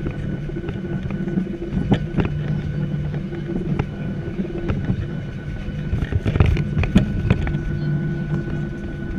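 Cabin noise inside a Boeing 737-700 taxiing: the engines' steady drone with a few constant humming tones. Scattered knocks and rattles come through, most of them between about six and seven and a half seconds in.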